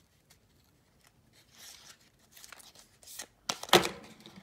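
Small cosmetics box and lipstick packaging being opened and handled: a few soft rustles and scrapes, with a louder crunchy rustle and knock about three and a half seconds in.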